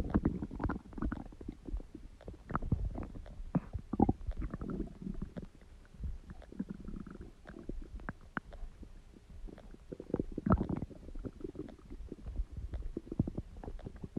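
Human stomach gurgling and growling: irregular bubbling pops and low rumbles, with louder bursts near the start and about ten and a half seconds in.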